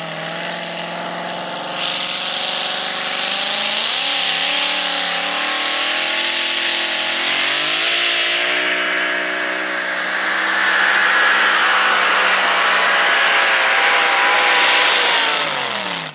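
Supercharged pulling-truck engine under full throttle, dragging a pulling sled. It runs lower for about two seconds, then gets louder as the throttle opens. The revs climb in steps and hold high, then drop away near the end as the pull finishes.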